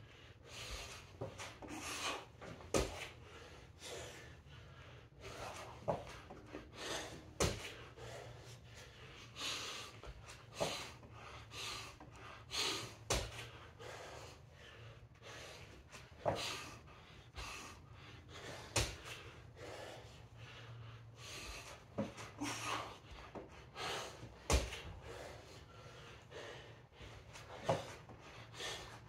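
A man breathing hard from exertion during a workout, a loud breath every second or two. There are a few sharp thumps among the breaths.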